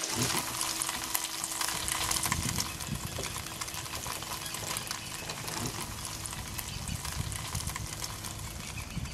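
Tofu sizzling and crackling in a hot frying pan, with a low rumble underneath.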